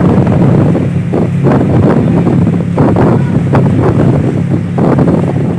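Steady low drone of a passenger ferry's engines, with wind buffeting the microphone in uneven gusts.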